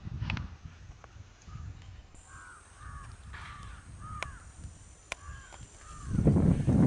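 Crows cawing, a string of short repeated calls, with a few sharp clicks; a loud low rumble sets in near the end.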